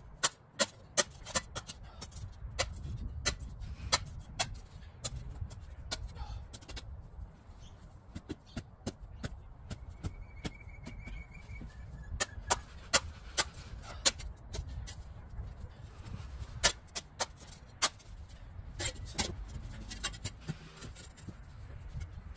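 Hand gardening tool at work on an overgrown lawn edge: a run of sharp, irregular strikes, roughly one to two a second.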